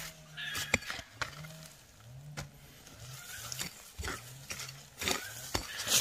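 A pig grunting over and over, short low grunts about twice a second, with scattered sharp knocks and clicks.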